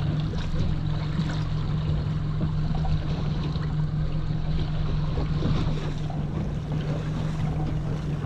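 A 200 hp outboard motor running steadily in forward gear, a constant low hum, with water washing along the hull and wind noise over it.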